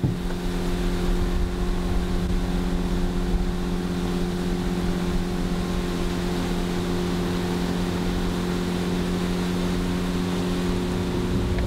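Boat motor running at a steady speed, a constant hum that comes on sharply at the start.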